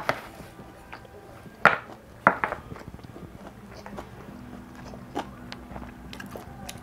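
Wooden spoon scraping and knocking against a foil-lined paper food tray while scooping up the last of the rice, with a few sharp scrapes, the loudest about two seconds in, and a smaller click later.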